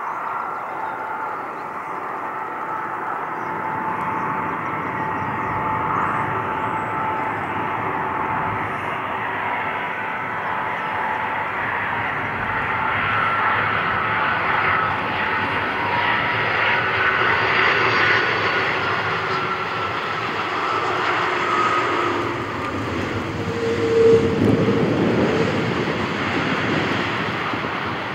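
Airbus A330 twin-jet airliner landing: its engines give a steady whine with several held tones on the approach and flare. Near the end, as it rolls out on the runway, a louder rush with a deep low end swells up.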